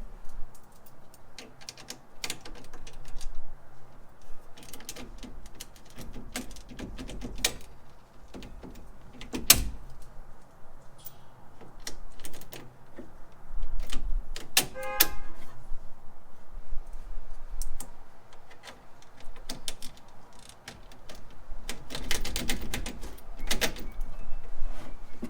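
Hand tools working on metal car parts: a scatter of irregular clicks, taps and clinks, with a brief metallic ring about halfway through.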